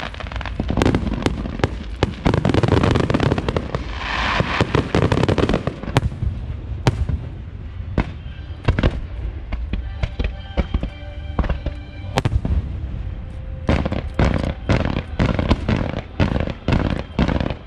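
Fireworks display: aerial shells and ground-level fireworks banging and crackling. The crackling is densest twice in the first six seconds, then come sharper single bangs, with a fast run of bangs about fourteen to seventeen seconds in.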